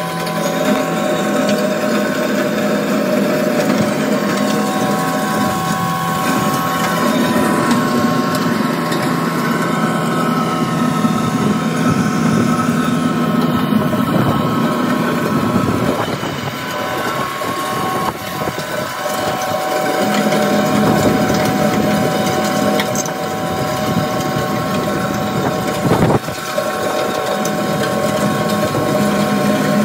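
Caterpillar 259D3 compact track loader's diesel engine and hydraulics running under load, with the Hydrabucket attachment's rotating drum grinding through gravel. The engine tone shifts a few times and there is one sharp knock near the end.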